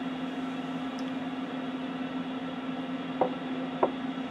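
Steady machine hum in the room, a low even drone with a held tone, with two short clicks about half a second apart a little after three seconds in.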